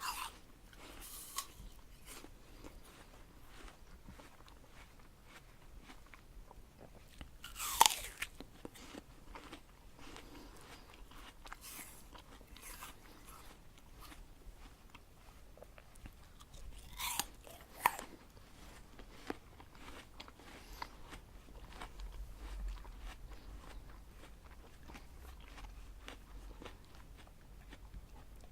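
A person biting into a crisp apple and chewing it. There are two loud crunching bites, about eight and seventeen seconds in, with quieter crackly chewing between and after them.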